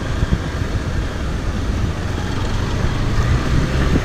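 Motorcycle engine running steadily at low speed as the bike rolls over a rough, muddy dirt road.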